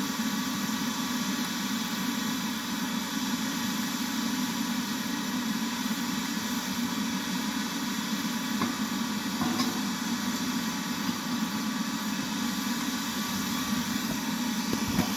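A forge running with a steady rushing noise, with a couple of faint knocks about nine seconds in.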